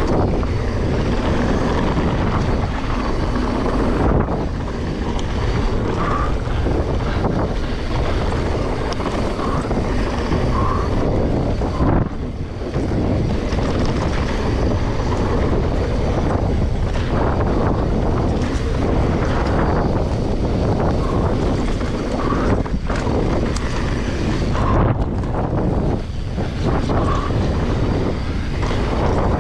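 Wind buffeting the microphone of a mountain bike moving at speed, with the knobby tyres rolling over a dirt singletrack and the bike rattling over bumps.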